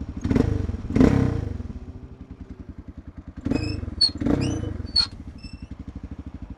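Single-cylinder four-stroke engine of a 1994 Suzuki DR650 dual-sport motorcycle idling with a rapid, even pulse. The throttle is blipped twice near the start and twice more past the halfway mark.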